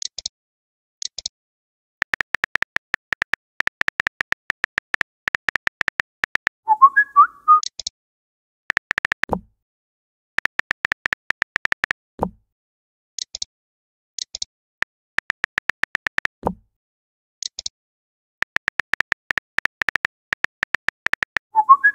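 Phone keyboard typing clicks from a texting app, in quick runs of taps. A short warbling chirp sounds about seven seconds in and again at the end as a message is sent, and a brief falling swoosh follows each of three shorter runs as each reply goes out.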